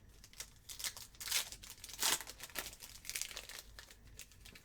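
Trading card pack wrapper being torn open and crinkled, in a run of uneven rustles with two louder tearing crackles in the first half.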